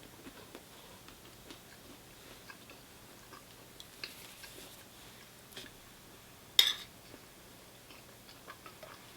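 Close-mic mouth sounds of someone chewing a mouthful of naan, with small clicks throughout, and one short, sharp crackle about six and a half seconds in.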